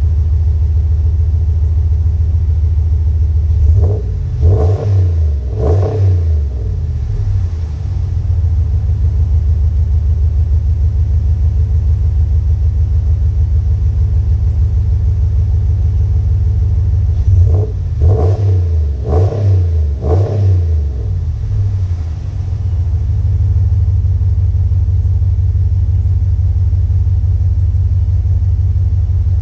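2019 Ram pickup's exhaust through a Magnaflow 19433 bolt-on replacement muffler, idling with a low, steady note. The throttle is blipped twice about four to six seconds in, and three more times between about eighteen and twenty-one seconds in.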